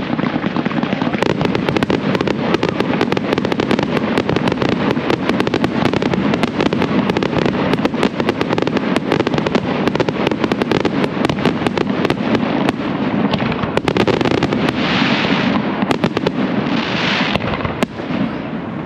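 Fireworks going off: a dense, continuous crackling of many sharp cracks a second over a low rumble, with two short hissing swells near the end.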